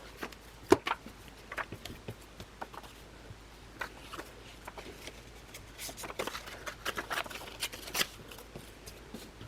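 Sheets of scrapbooking paper being handled: irregular rustling with light taps and clicks, the sharpest a little under a second in and near the end.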